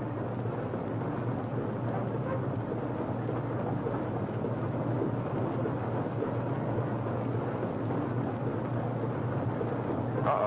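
A steady, even rumble of noise with a low hum underneath.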